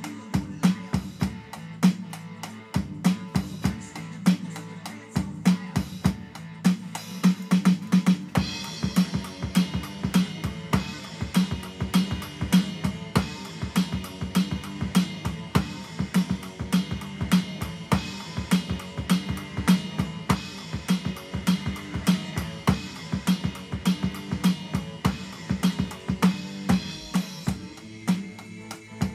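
Electronic drum kit played in a busy, improvised groove of snare, bass drum and hi-hat, with rimshots. The cymbals grow brighter and denser from about eight seconds in and thin out near the end.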